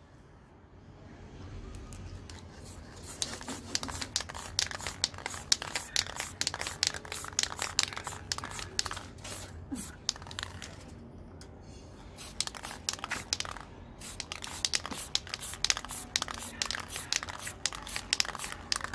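Sheet of paper crinkling and crackling as it is held and shifted as a mask over a spray-painted picture, mixed with short hisses of an aerosol spray-paint can. The crackling comes in dense, fast runs with a couple of brief pauses.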